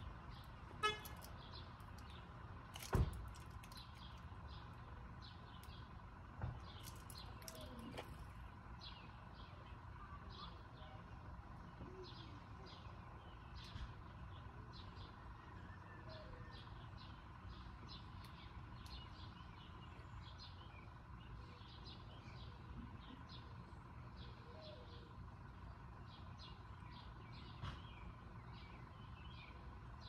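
Small songbirds chirping, short high calls repeated again and again, over a steady low rumble. Two sharp knocks stand out near the start, the louder about three seconds in.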